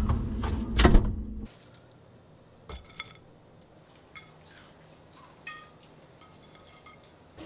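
Background music that stops about a second and a half in. Then quiet kitchen handling: a few light clinks and knocks of dishes or cups, one with a short ring.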